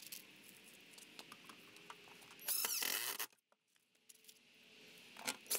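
Small metal screws clicking and rattling in a clear plastic organizer case as they are picked through by hand, with a louder rattle about two and a half seconds in and another near the end.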